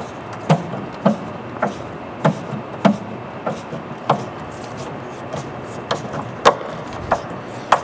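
Wood screw being driven by hand with a Phillips screwdriver through a metal piano hinge into wood: a short click with each twist, a little under two a second.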